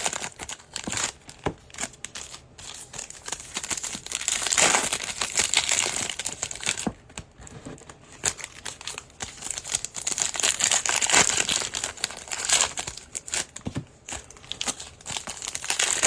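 Crinkling and rustling of 2021 Prizm football card pack wrappers being handled, coming in bursts every few seconds with small clicks in between.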